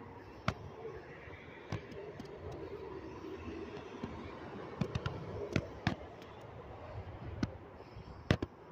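Footsteps on dry, cracked mud and brittle flood debris, with irregular sharp snaps and clicks over a faint steady outdoor background.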